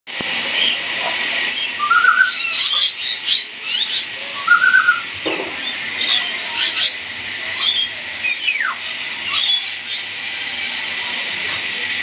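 Several caged parrots chirping and calling: many short high chirps, two warbled lower notes about two and five seconds in, and a falling call a little after eight seconds, over a steady hiss.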